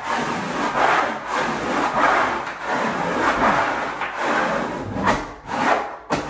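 Repeated rubbing strokes against wallpaper on a wall, about one stroke a second, as the hung wallcovering is worked over by hand; the strokes grow shorter and sharper near the end.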